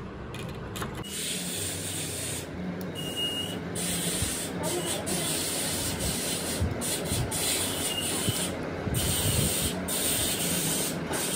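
Steady hiss that breaks off briefly several times, with light scraping and clicking of steel parts worked by hand with a pick.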